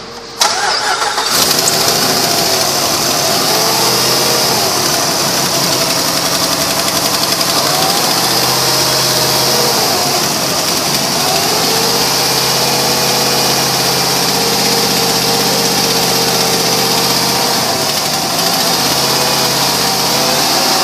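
A 2007 Jeep Grand Cherokee's 5.7-litre Hemi V8 is cranked and catches about half a second in, then runs at idle with its pitch drifting slowly up and down. It has an exhaust leak, which the seller places at the passenger-side exhaust manifold.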